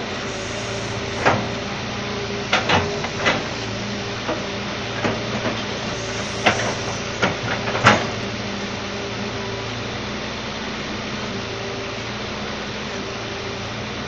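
Excavator's diesel engine running steadily, with a run of sharp metallic clanks and knocks from about one to eight seconds in.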